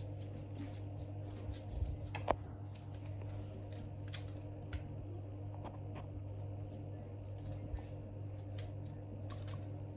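Small plastic fidget toys being handled, giving scattered light clicks and rustles, with a sharper tap a couple of seconds in, over a steady low hum.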